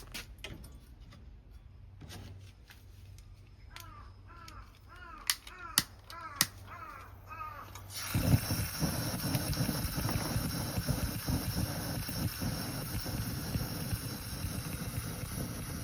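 A few clicks and a run of short squeaks, then about eight seconds in a pressurized burner flame catches and burns with a steady roar, as on a Coleman 400A liquid-fuel stove being test-fired after repair.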